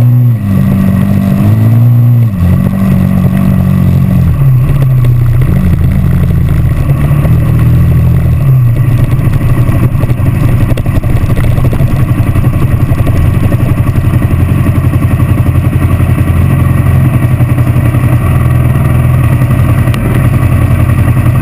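Dirt bike engine revving up and down as it rides, its pitch rising and falling several times, then settling about eight seconds in to a steady low-rev run that carries on to the end.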